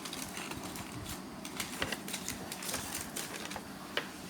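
Light handling noise from an unboxed laptop and its packaging: faint rustling with a few scattered small clicks and taps, one sharper tap near the end.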